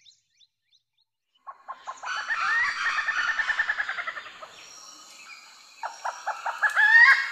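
Forest birds calling: after a near-silent second and a half, a bird gives a rapid run of short repeated notes that climbs in pitch, and a second such run starts about six seconds in, over fainter high-pitched calls.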